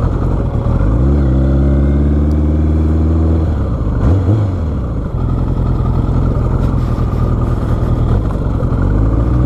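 Motorcycle engine under way, heard through the rider's helmet mic: it revs up about a second in and holds a steady pitch, drops off around three and a half seconds in with a brief blip, then runs on lower before picking up again near the end.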